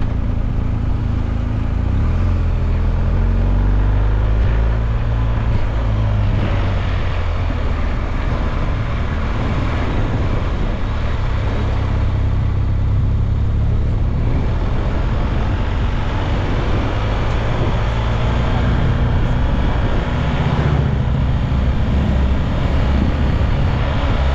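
Motorcycle riding downhill, its engine running with the pitch rising and falling, under a steady rush of wind noise.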